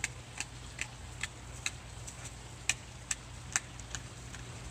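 Dog chewing a thick rope, its jaws and teeth making sharp clicks about twice a second over a low steady rumble.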